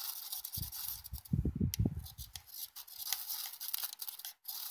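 Ferro rod struck again and again with the spine of a Mora Companion Heavy Duty knife, a quick series of sharp scrapes that throw sparks.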